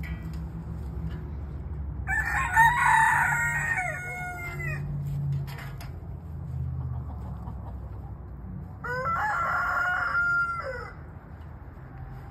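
A rooster crowing twice, each crow two to three seconds long, the first about two seconds in and the second near the end, over a low steady rumble.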